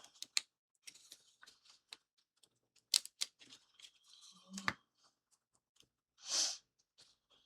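Scattered small clicks and snaps of small kit parts being handled and pressed out of their sheet, the sharpest about three seconds in and just before five seconds. About six seconds in comes a short hiss, the loudest sound.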